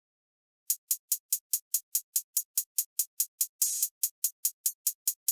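Programmed drum-machine hi-hats playing alone in a beat: a steady run of short closed-hat ticks, about four and a half a second, starting after a moment of silence, with one longer open-hat hiss about three and a half seconds in.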